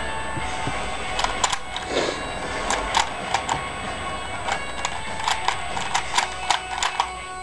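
Rubik's cube being turned quickly by hand: a fast, irregular clatter of plastic clicks, several a second.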